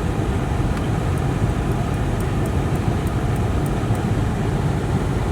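Steady low rumble of a car on the move, road and engine noise without a break.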